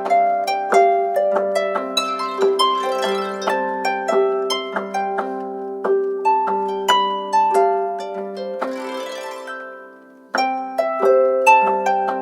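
Samsung Galaxy S7 ringtone: a plucked, harp-like melody of quick notes. It dies away about ten seconds in and starts again from the top as the ringtone loops.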